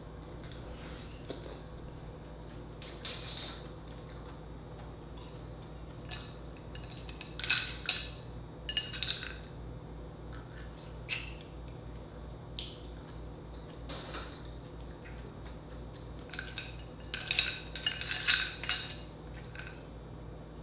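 A small fork clicking and clinking against clam shells and a glass bowl as clams are picked out and eaten, in scattered taps with busier clusters about 3, 8 and 18 seconds in. A faint steady hum runs underneath.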